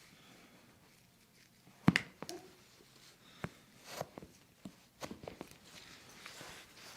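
Joints cracking during a chiropractic adjustment: a sharp double crack about two seconds in, then a run of softer pops and clicks at uneven intervals.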